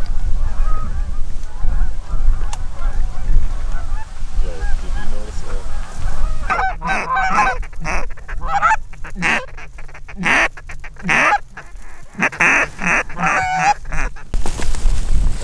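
Geese calling: a distant flock chattering over wind rumbling on the microphone, then from about six and a half seconds a run of loud, close honks in quick succession.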